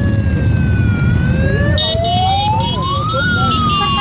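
An emergency-vehicle siren wails, sliding slowly down, then up for about two seconds and down again, over the steady low rumble of many motorcycle engines riding past. Short high beeping tones join from about halfway.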